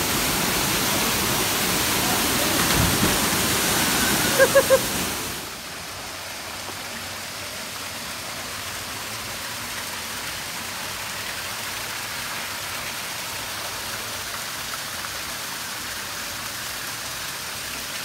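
Galgamaç waterfall's falling water, a steady rush; it drops suddenly to a quieter rush about five seconds in.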